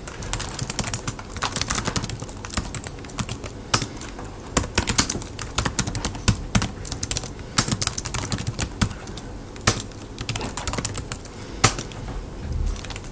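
Typing on a computer keyboard: irregular runs of quick keystrokes with short pauses between them, as short commands are entered.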